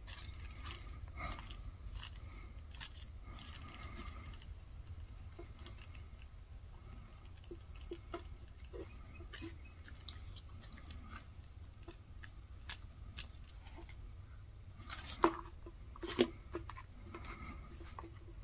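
Hand-stitching a leather sheath: thread drawn through the stitch holes with soft rustling and small ticks from the needles and handling. Near the end come two sharper clicks about a second apart.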